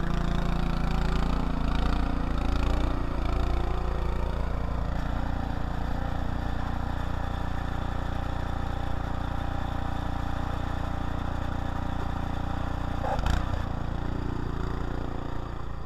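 Snowblower's small gasoline engine running steadily, with one sharp knock about thirteen seconds in.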